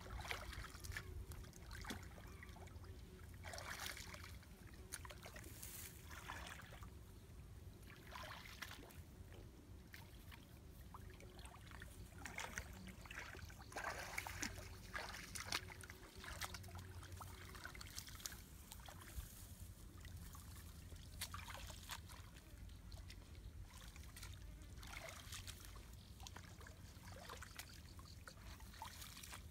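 Faint, irregular splashing and trickling of shallow muddy water as hands grope through it for fish.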